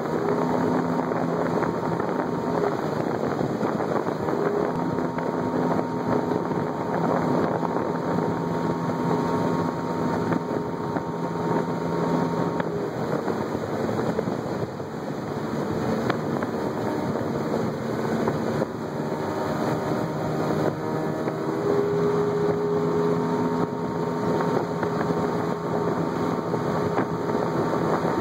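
Outboard jet motor running an aluminium Alweld 1652 jet boat along at speed, a steady engine drone under rushing wind on the microphone. The engine tone loosens and weakens about halfway through, then settles back to a steady drone for the last few seconds.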